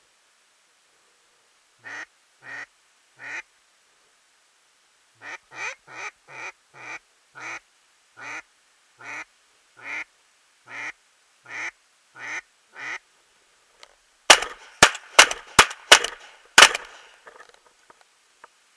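Duck call sounding mallard-hen quacks: three, then a run of about a dozen that slows toward the end. Near the end comes a quick run of six or seven loud, sharp bangs.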